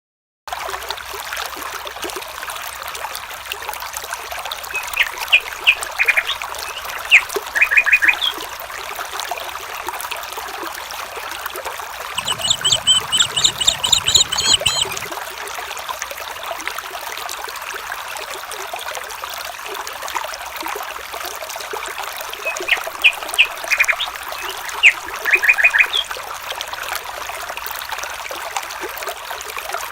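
Water trickling and flowing steadily, with clusters of short bird chirps twice and a rapid high trill lasting a few seconds in the middle.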